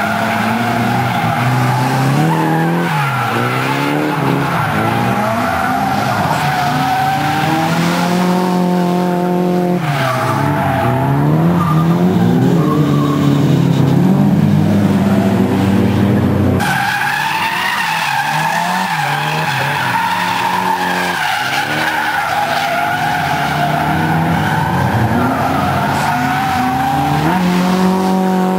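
Drift cars sliding through a corner one after another, tyres squealing steadily. Their engines rev up and down as the drivers work the throttle through the slide.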